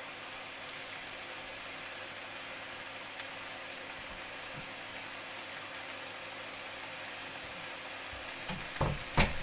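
Steady sizzling hiss from the frying pan, with two sharp knocks near the end as a door is pushed shut.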